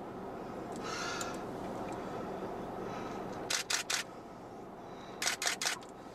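Camera shutter firing in rapid bursts: three quick clicks about three and a half seconds in, then four more near the end, over a steady low background hum.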